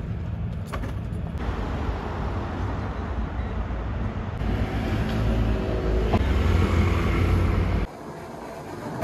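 Road traffic on a city street: a steady low rumble of car engines and tyres, swelling louder about halfway through and cutting off abruptly near the end.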